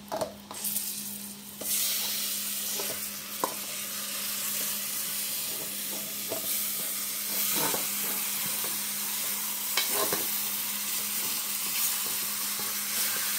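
Raw seasoned chicken pieces tipped into a pot of hot oil and fried curry powder, sizzling steadily; the sizzle sets in about two seconds in as the meat hits the oil. A spoon clicks against the bowl now and then.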